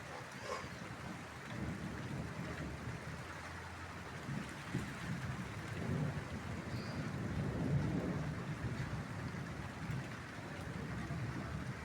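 Steady light rain with low rolling thunder that swells and fades around the middle.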